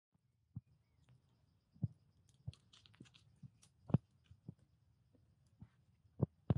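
Footsteps on sandy ground and handling knocks: irregular soft thumps, the loudest about two, four and six seconds in. Under them is a faint, high, steady buzz that fades out about halfway through.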